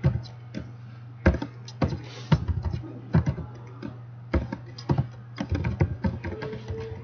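Computer keyboard being typed on, keystrokes clicking in irregular clusters over a steady low electrical hum.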